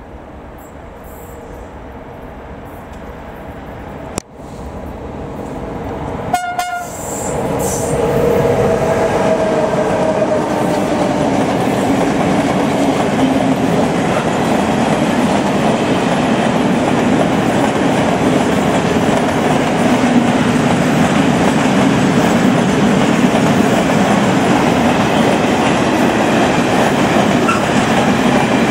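Freight train approaching and passing close by: the sound grows louder over the first several seconds, a short horn blast sounds about six and a half seconds in, then a long string of flat wagons rolls past with a loud, steady rumble and clatter of wheels on the rails.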